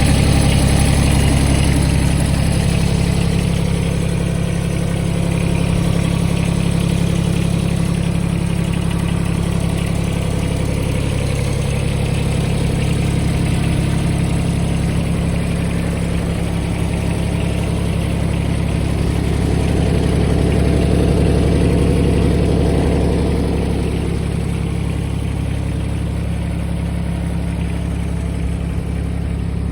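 John Deere X495 ride-on mower's engine running steadily, its note swelling a little twice along the way.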